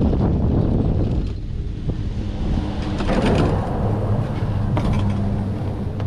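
Wind buffeting the microphone as a chairlift arrives at the top terminal, then a steady low hum. Skis scrape and slide on the unload ramp snow about three seconds in, with a few light clicks.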